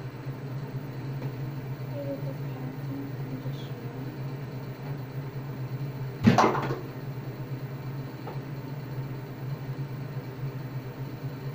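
A steady low hum throughout, with one sharp knock a little past halfway, like something closing or being set down hard.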